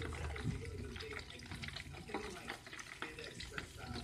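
Chicken pieces frying in hot oil, a continuous sizzle of many small crackles and pops.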